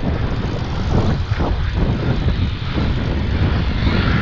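Steady low rumble of wind buffeting the microphone while cycling along a street, with car traffic running alongside.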